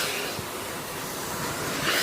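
Vacuum cleaner running steadily with its hose attachment, the suction hiss swelling briefly near the end as the tool is worked over a surface.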